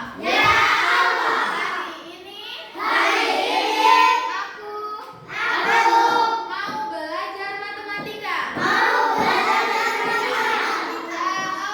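Children singing together, in phrases with short breaks between them.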